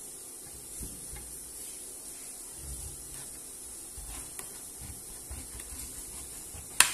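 Kitchen knife cutting and scraping the rind off a green pumpkin on a ceramic plate: quiet, irregular scraping and rubbing with a few soft knocks. One sharp click comes near the end.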